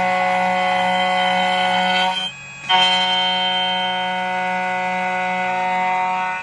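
CNC key cutting machine's spindle running with a steady high whine while it mills the second side of a key blank. It drops out briefly about two seconds in, then runs on.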